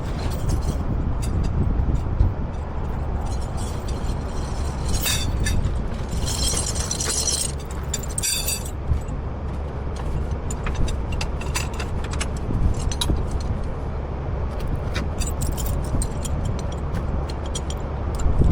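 A heavy truck running with a steady low rumble, with a metallic jingling rattle about five to nine seconds in.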